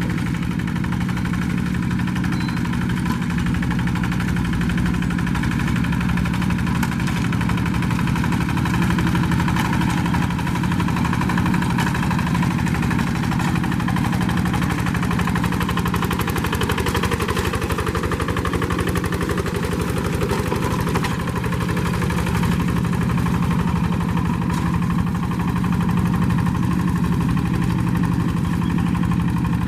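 Diesel engine of a walk-behind paddy-field tractor running steadily at an even speed.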